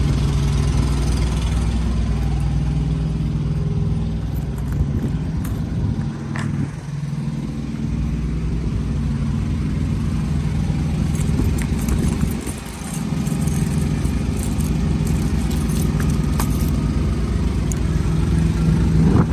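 An engine idling steadily with a low hum, dipping in loudness briefly twice.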